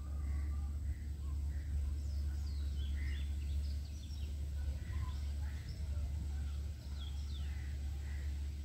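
Birds chirping and calling in short, scattered notes, some falling quickly in pitch, over a steady low rumble.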